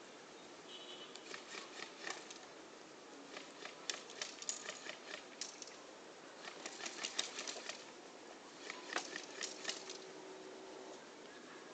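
Airsoft guns firing in four short volleys of rapid, sharp clicks, each lasting about a second.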